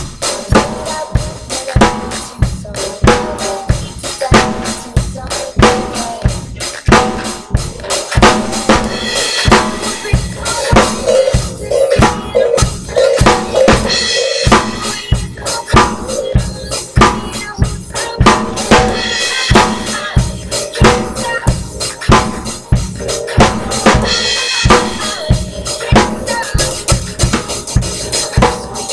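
Acoustic drum kit played with sticks in a steady, driving beat: bass drum, snare and cymbals struck several times a second.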